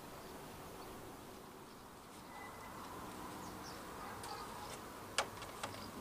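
Faint buzzing of a flying insect over quiet outdoor background. Two short sharp clicks a little after five seconds in.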